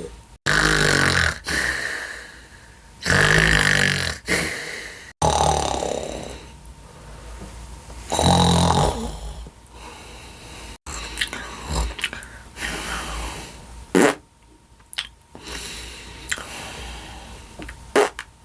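Person snoring: four long, loud snores in the first nine seconds, then softer, shorter snores, with two brief sharp noises about fourteen and eighteen seconds in.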